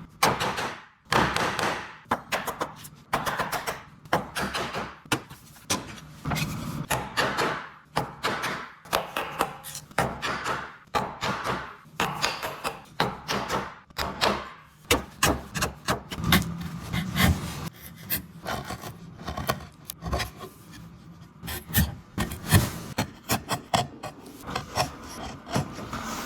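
Hand tools working wood: repeated, irregular scraping strokes on the wood, with a few sharper knocks in between.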